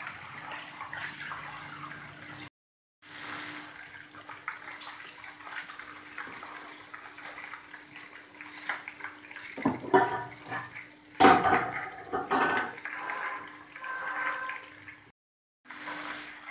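Crushed ginger sizzling in hot oil in a steel karahi, being fried until its raw taste is cooked off. A wooden spoon stirs it, scraping and knocking against the pan about ten to thirteen seconds in.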